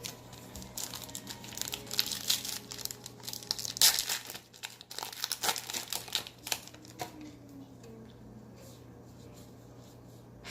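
A foil trading-card pack wrapper being torn open and crinkled by hand: a run of crackling and rustling that dies down about seven seconds in.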